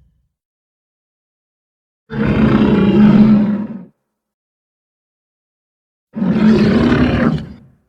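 Two roars of a designed gorgonopsid (saber-toothed beast) creature sound effect, each under two seconds long, with dead silence between them. The first starts about two seconds in, the second about six seconds in.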